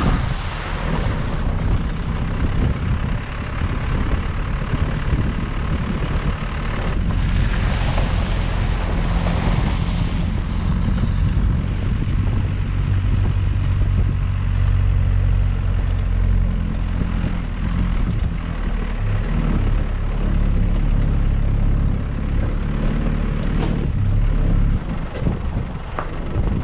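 A four-wheel drive's engine running steadily as it drives along a rough dirt track, with tyre and rushing noise over it. The rushing hiss swells near the start and again from about seven to eleven seconds in.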